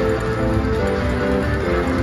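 Slot machine's bonus-round music: an electronic melody of short stepped notes over a low pulse, playing while the win meter counts up during free spins.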